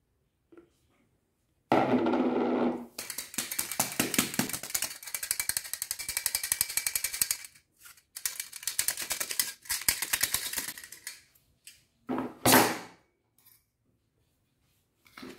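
Flour tipped into a metal mesh sieve with a dull rush, then sifted through it into a plastic bowl: a fast, scratchy rattling of the sieve and the flour being rubbed through the mesh for several seconds. A single knock comes near the end.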